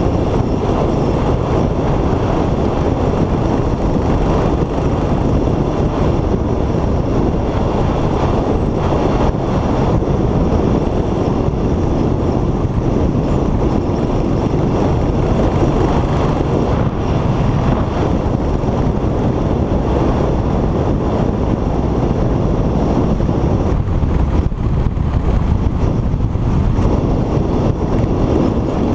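Royal Enfield motorcycle's single-cylinder four-stroke engine running steadily through its stock exhaust while riding at an even speed.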